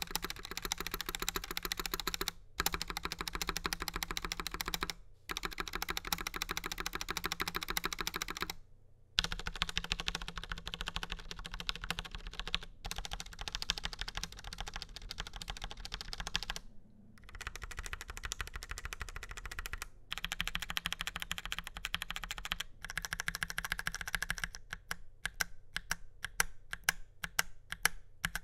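Fast continuous typing on a Logitech POP Keys mechanical keyboard with TTC Brown tactile switches and rounded ABS keycaps: rapid key clacks in runs of a few seconds with short pauses between them, and slower, separate keystrokes near the end.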